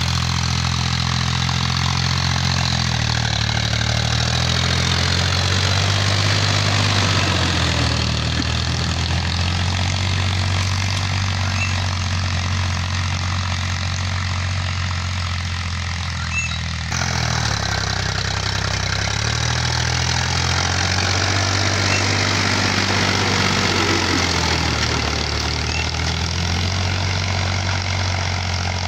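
Powertrac 439 Plus tractor's three-cylinder diesel engine running steadily under load, pulling a disc harrow through tilled soil in second high gear. The engine note dips and rises a few times.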